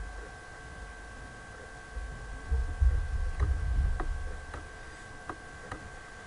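A few faint, irregular clicks of a stylus tapping and writing on a pen tablet, over a low rumble and a steady faint electrical hum.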